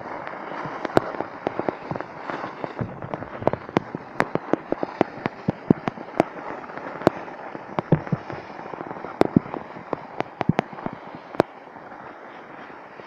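Skis sliding over packed snow: a steady scraping hiss broken by many sharp, irregular clicks and cracks.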